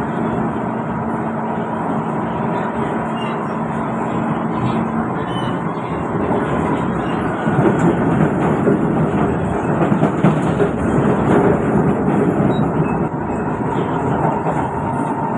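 Kawasaki C151 metro train running between stations, heard from inside the car: a steady rumble of wheels and running gear. A steady low hum stops about five seconds in, and the rumble grows louder for a stretch in the middle.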